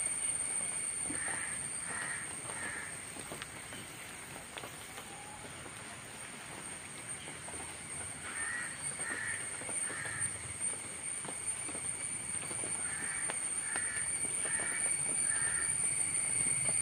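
A bird calling outdoors in short series of three or four calls, three series in all, over a steady high-pitched whine that runs throughout.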